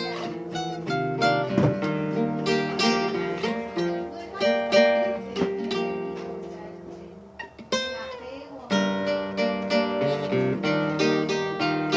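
Solo classical guitar, tuned to A=432 Hz, playing a slow melodic piece of plucked, ringing notes. Just past the middle the notes die away with a few small clicks, then the playing resumes with quicker plucked notes.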